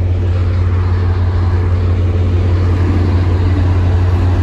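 Caltrain passenger train passing close by: a steady, loud low diesel drone from the locomotive over the rolling noise of the bilevel cars on the rails.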